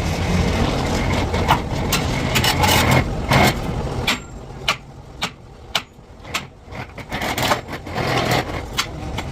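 An engine or machine runs steadily, then drops away about four seconds in, leaving a run of sharp, separate knocks before the running sound picks up again near the end.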